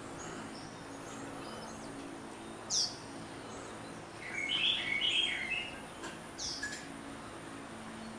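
Birds calling: two short, sharp whistles sliding downward, about four seconds apart, with a burst of loud chattering notes lasting about a second between them.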